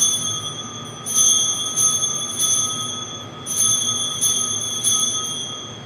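Altar bells rung at the elevation of the chalice during the consecration, shaken in repeated bursts of several bright ringing strikes. A new burst starts about a second in and another about three and a half seconds in.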